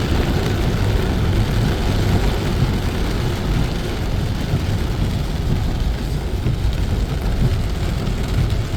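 Steady, rumbling roar of heavy storm water: a downpour and rushing floodwater.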